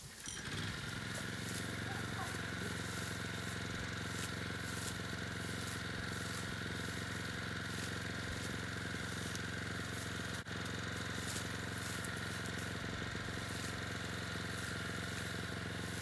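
Small walk-behind rice binder's engine running steadily, with an even, buzzing drone.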